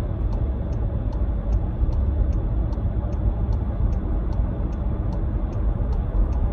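A car's turn-signal indicator ticking steadily, about two and a half ticks a second, over the steady rumble of road and engine noise inside the cabin.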